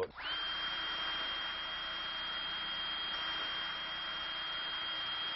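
A power tool whirring steadily with a thin high whine. It switches on abruptly just after the start.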